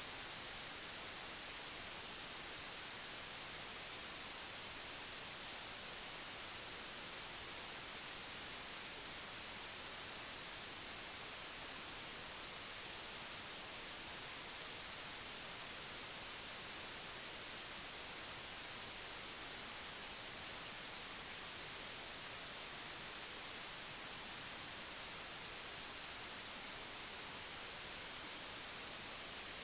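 Steady, unchanging hiss like static, strongest in the high end, with no other sound standing out.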